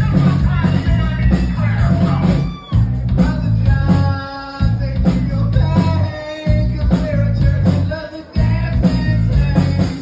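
Live rock band playing: electric guitars and bass over a heavy beat, with a voice singing. The rhythm drops out briefly a few times.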